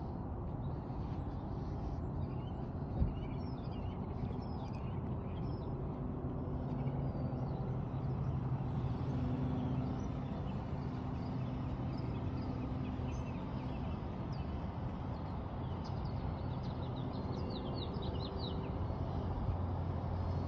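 Small birds chirping, with a quick run of chirps near the end, over a steady low outdoor rumble. A single knock about three seconds in.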